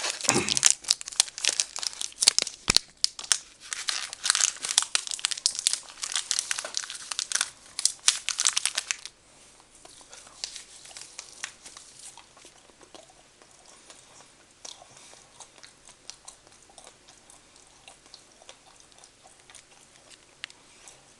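Candy bar wrapper crinkling and tearing as it is opened, for about nine seconds, then stopping abruptly; after that, faint chewing.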